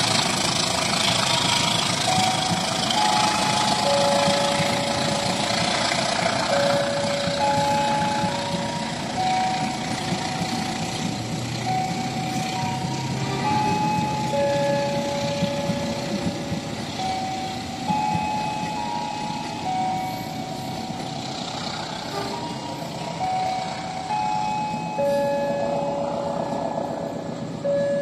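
Steady, loud noise of a train running, with a simple electronic melody of single held notes playing over it.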